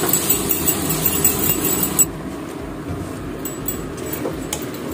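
Small potatoes sizzling and crackling as they fry in oil in a pan. About two seconds in the sound cuts to a quieter pot of chicken curry being stirred, with a metal spoon clicking and scraping against the pot.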